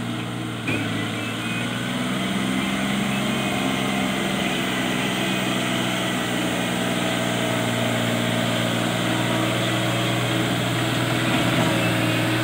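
John Deere 4WD tractor's diesel engine running steadily as the tractor drives forward, getting a little louder about a second in.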